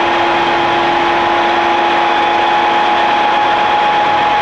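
Milling machine spindle running with a boring head, boring out a bushing pressed into an LT230 transfer-case housing to finished size: a steady machine hum with a higher whine, the lower of the two tones dropping out shortly before the end.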